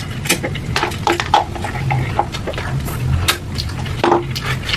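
Close-miked eating sounds from ghost pepper noodles: irregular mouth clicks and wet chewing noises, with an occasional light clink of utensils.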